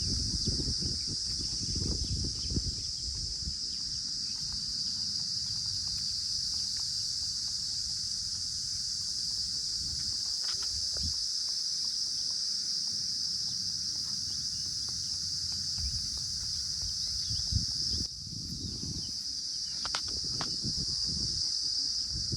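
Steady, high-pitched chorus of insects such as crickets, with low rumbling in the first few seconds and again in the last few seconds.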